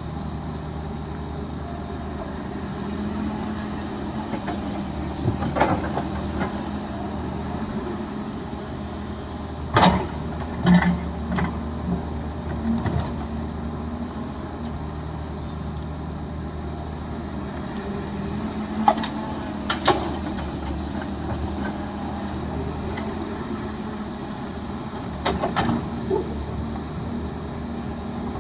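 Heavy machinery's engine running steadily with a low hum, with a few sharp clanks and knocks, bunched twice around a third of the way in and twice more in the later part.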